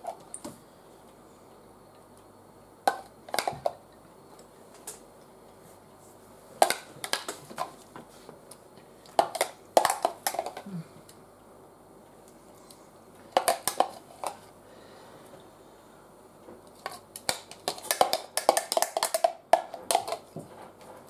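Cutlery clinking and scraping in short clusters of clicks every few seconds as guacamole is spooned onto a tray of nachos.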